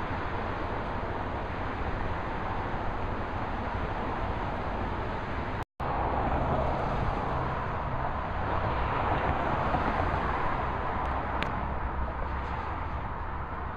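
Road traffic noise from vehicles on a wide street, a steady mix of tyre and engine sound, cut off by a brief dropout about halfway through and then resuming with a heavier low engine rumble.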